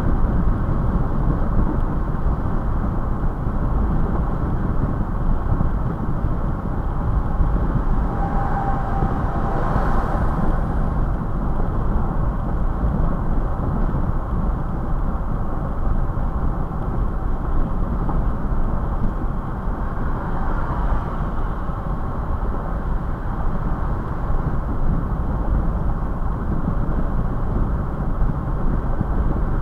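Steady road, tyre and wind noise of a Toyota FJ Cruiser cruising at about 65 mph, heard from inside the cabin. The noise swells briefly about ten seconds in.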